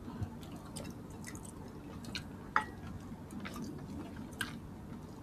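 Close-up wet eating sounds: chewing and mouth smacks, with scattered small sharp clicks; the loudest click comes about two and a half seconds in, with a brief ring after it.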